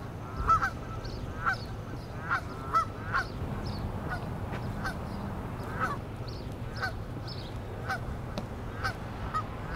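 A flock of geese honking, calls coming about once a second, some in quick pairs, over a low steady hum.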